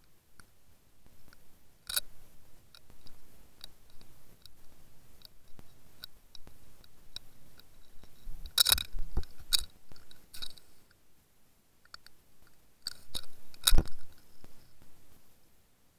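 Irregular small clicks and taps, with sharp louder knocks about two, nine and fourteen seconds in, the last the loudest, picked up by an underwater camera rig.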